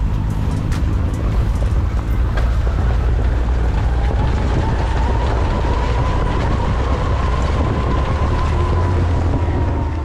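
ATV engine running steadily while riding, with heavy wind noise on the microphone. The engine note climbs slightly about four seconds in.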